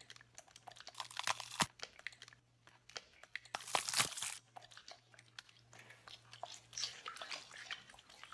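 Quiet, scattered crunching and tearing sounds of a gore effect for a knife being stabbed into a neck, densest about four seconds in, over a faint low hum.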